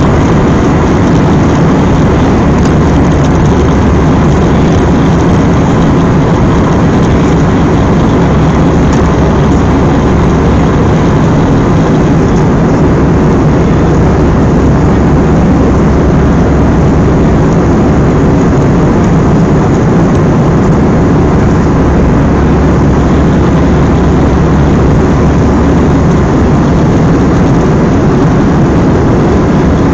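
Jet airliner cabin noise in flight: the steady roar of the jet engines and rushing airflow, heard from a window seat inside the cabin.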